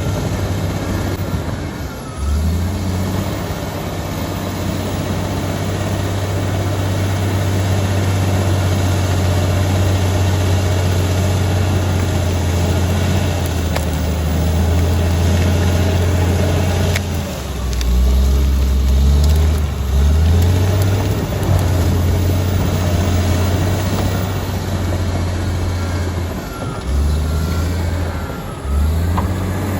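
Komatsu D85EX bulldozer's diesel engine running with a loud, low drone that dips and picks up again a few times as the load or revs change: once a couple of seconds in, for a few seconds past the middle, and twice near the end.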